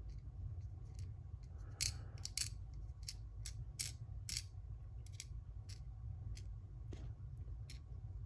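Irregular small metallic clicks and ticks, about a dozen, as the small parts of a Schlage Primus lock cylinder (springs and pins) are handled and dropped during disassembly, over a steady low hum.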